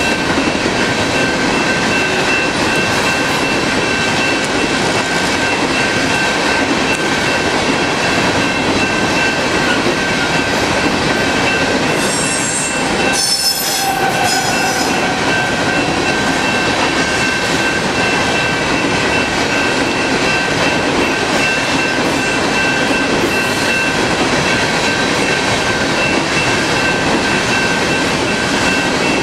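Empty coal train cars rolling past close by: a steady, loud rush and rumble of steel wheels on the rails, with a steady high-pitched tone throughout. A brief extra high-pitched squeal comes about halfway through.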